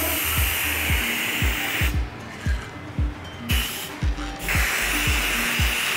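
Aerosol can of gold spray paint hissing in long bursts: about two seconds of spraying, a pause of a second and a half, then two more bursts with only a short break between them.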